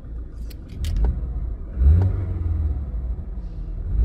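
BMW 320i four-cylinder engine idling through an aftermarket valved exhaust with the valve switched shut, giving a quieter, stock-like note. A couple of sharp clicks from the remote fob come in the first second, and the engine note swells briefly about two seconds in.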